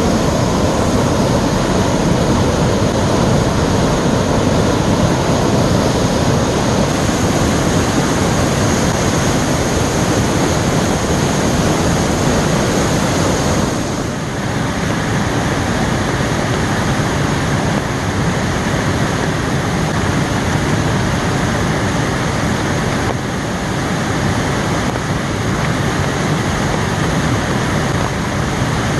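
Waterfall swollen by heavy rain, a loud steady rush of falling water. It dips slightly in level about halfway through and again near the end.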